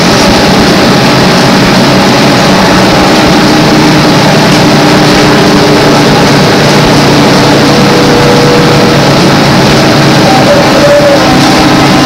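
Inside a GM New Look trolleybus with Brown Boveri electric propulsion under way: a steady ride noise of body, tyres and electric drive, with a low hum, recorded on an old cassette tape.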